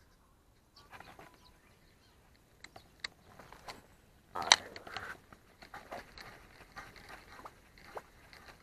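Handling noises of a spinning rod and reel during a cast: a sharp sound, the loudest, about halfway through, followed by a run of small clicks and ticks as the reel is handled.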